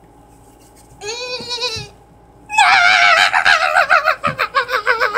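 A girl singing in a loud, fast-wavering, bleat-like warble: a short phrase about a second in, then a long, high note from about halfway that wobbles and slides down in pitch.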